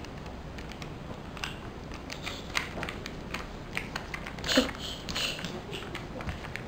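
Scattered soft clicks and rustles, irregularly spaced, with one brief vocal sound about four and a half seconds in.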